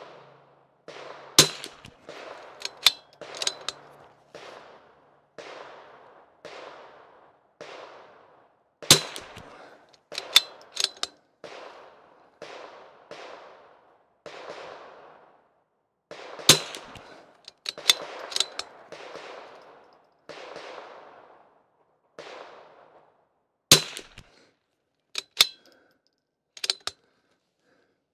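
Rim-X .22 LR rifle firing a string of single shots, sharp cracks several seconds apart, the loudest about every seven and a half seconds. Under them runs a soft regular pulse about every two-thirds of a second.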